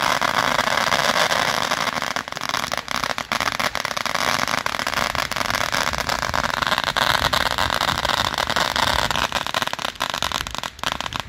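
Ground firework fountain spraying sparks with a loud, dense crackle of many small rapid pops, thinning to separate cracks near the end.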